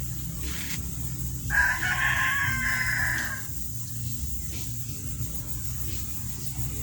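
A bird calling once: one loud call of about two seconds, starting about one and a half seconds in, over a low steady hum.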